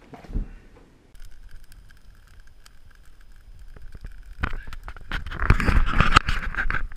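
Open wood campfire crackling with sharp pops, growing louder and fuller about two-thirds of the way in as the flames flare. A faint steady high tone runs under it.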